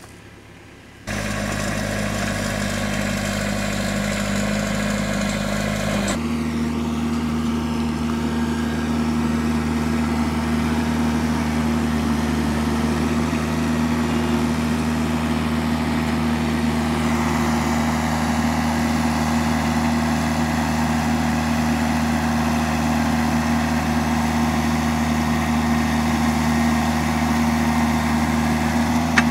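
Engine of a stand-on mini track loader running at a steady speed while it drives an auger digging a fence post hole. The sound comes in about a second in, and its pitch shifts once about six seconds in, then holds steady.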